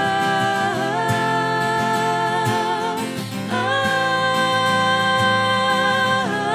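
Live folk-pop song: acoustic guitar strumming under a held melody line with vibrato, two long sustained notes, the second starting about halfway through.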